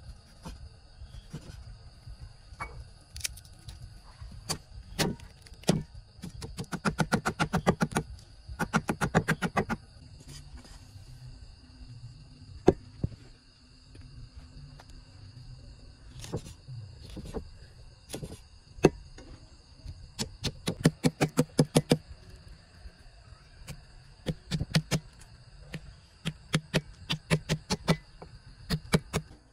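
Steel cleaver striking a thick wooden chopping block: single knocks and fast runs of chopping, about ten strokes a second.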